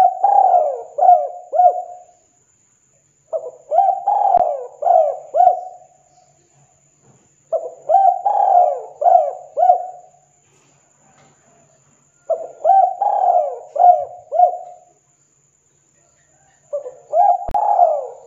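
Spotted dove cooing: a phrase of four or five rolling coos, repeated about every four to five seconds with short pauses between.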